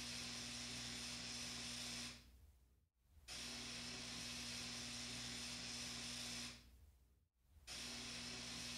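A steady hiss with a faint low hum. It fades away about two seconds in and again about six and a half seconds in, and each time it cuts back in abruptly a moment later.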